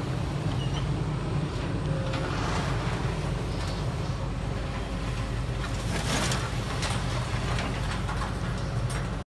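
Heavy diesel engine running steadily, with scattered metal clanks and a louder crash of metal about six seconds in as a scrap-yard grapple handler lets go of a stripped car body onto the pile.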